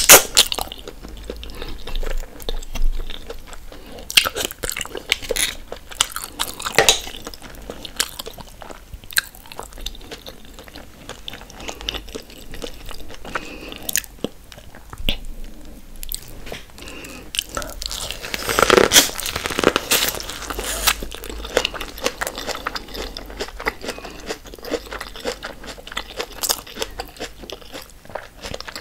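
Close-miked eating sounds: wet chewing and crunching bites of a seafood boil in sauce, eating mussels and biting into corn on the cob. There is a louder run of bites and crunches a little past the middle.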